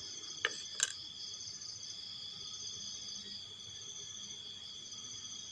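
Night insects, crickets, chirring in a steady high chorus that pulses continuously, with two short clicks within the first second.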